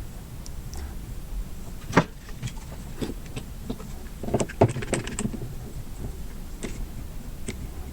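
Scattered small clicks and knocks from handling the freshly glued watch and its parts on a work surface, with one sharp knock about two seconds in and a quick run of taps past the middle.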